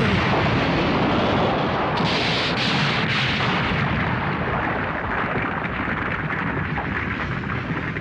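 Animated sound effect of a rock explosion: a blast as rock shatters, a second burst about two seconds in, then a long rumble of crumbling, falling rock that slowly fades.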